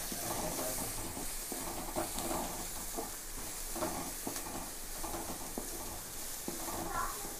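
Chopped onions with garlic and ginger sizzling in hot oil in a steel kadai, with a wooden spatula scraping and stirring them in repeated strokes.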